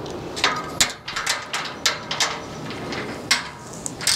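Nuts and bolts being snugged down with a wrench while the workbench rail is held square, giving irregular sharp metallic clicks and clanks.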